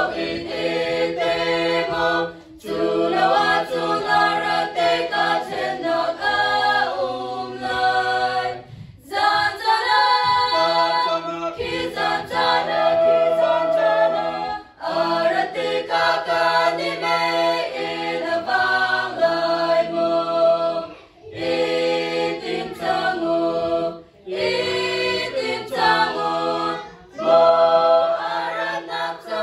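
Women's choir singing a hymn a cappella, several voices together. The singing runs in phrases a few seconds long with short breath pauses between them.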